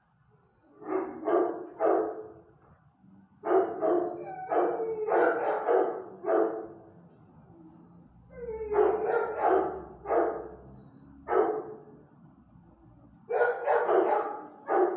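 Dog barking in repeated clusters of several sharp barks, with short quieter pauses between the clusters.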